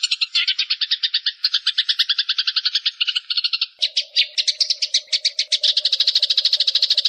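Eurasian tree sparrow giving its long, rapid chattering fighting call: an unbroken run of very fast, evenly repeated sharp notes. About four seconds in, the notes change character and a low steady hum joins them.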